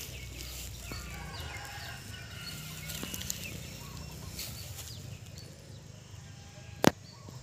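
Chickens clucking amid faint outdoor ambience, with a single sharp click near the end.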